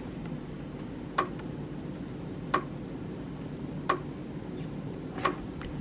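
Sharp ticks at an even pace, about one every second and a third, over a low steady hum.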